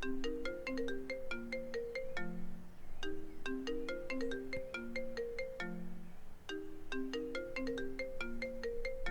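Mobile phone ringing with a melodic ringtone, a short tune of quick notes repeating about every three seconds.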